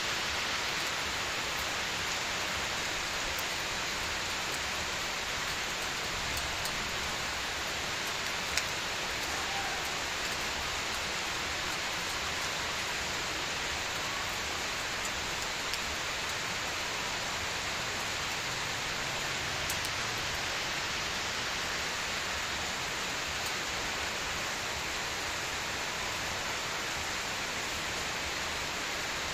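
Steady rain falling, a continuous even hiss with no change in strength, broken by a few brief sharp ticks.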